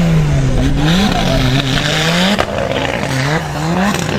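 Off-road 4x4 truck engine revving up and down over and over, its pitch rising and falling roughly once a second, with a hiss partway through.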